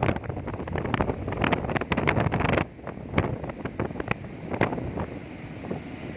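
Big sea waves surging and breaking, with a loud crash of water for the first couple of seconds that falls to a quieter wash. Heavy wind buffets the microphone throughout.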